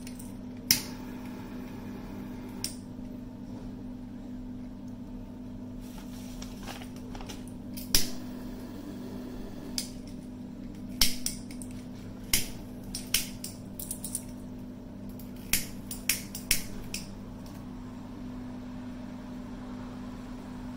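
Paper crackling and rustling as it burns and is handled in a ceramic bathroom sink: a sharp click about a second in, then a run of scattered sharp crackles from about eight to seventeen seconds in, over a steady low hum.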